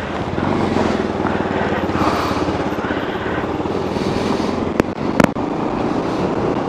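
Motorcycle engine running steadily under way, with a rushing hiss over it and two short sharp knocks about five seconds in.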